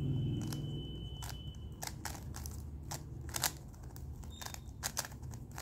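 Plastic 3x3 Rubik's cube being turned quickly by hand during a speed-solve, its layers clicking in an irregular run of sharp clacks.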